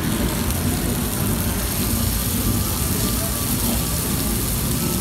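Prawns frying in hot oil with garlic in a frying pan: a steady sizzle that starts as they are tipped in from a strainer. A low rumble runs underneath.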